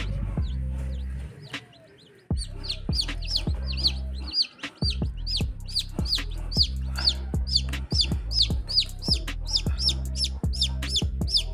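Newly hatched chicks peeping rapidly: high, short calls, each falling in pitch, about three a second from about two seconds in. Background music with a steady beat runs underneath.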